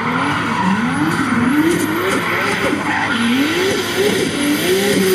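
Volvo 940 with a swapped-in Toyota 2JZ straight-six revving up and falling back again and again, about once a second, while drifting, with the rear tyres skidding and squealing under wheelspin.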